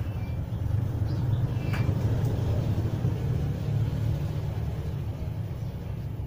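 Zippo lighter burning with an oversized torch-like flame, the fire coming from inside the overheated insert rather than only from the wick top, giving a steady, fluttering low rumble.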